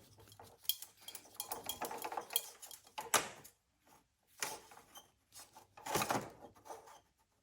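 An old car wiring harness being handled: the wires rustle and the metal connectors give small irregular clinks and clicks, with a sharper click about three seconds in.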